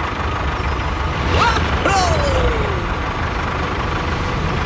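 Low, steady tractor engine rumble. A short rising whistle-like glide comes about a second and a half in, then a long falling one.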